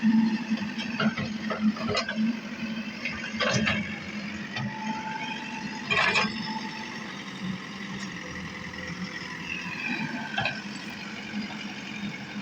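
JCB backhoe loader's diesel engine running steadily, with a few sharp knocks on top, the loudest about six seconds in.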